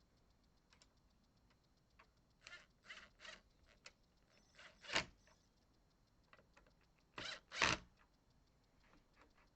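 A series of short knocks and clatters from metal door-lock hardware being handled and fitted into a door, loudest about five seconds in and again as two quick knocks near the end.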